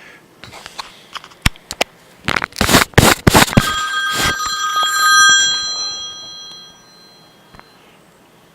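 Clattering and handling noises, then a struck metal object ringing with several clear bell-like tones that fade out over about three seconds.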